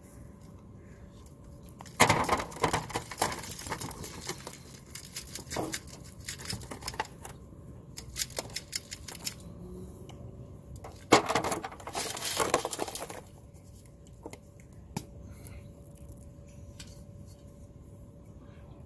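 Boiled crayfish, corn cobs and potatoes tumbling out of a perforated aluminum steamer basket into disposable aluminum foil pans: a rattling clatter in two bursts, about two seconds in and again about eleven seconds in, with a few single clicks after.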